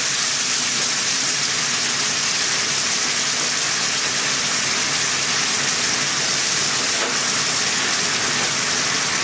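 Chicken and demi-glace sauce sizzling in a hot pan, a steady hiss that does not let up.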